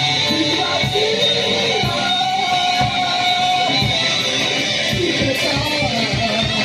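A band playing loud, distorted live music: electric guitar strummed over drums hit several times a second, with a wavering held note that slides in pitch.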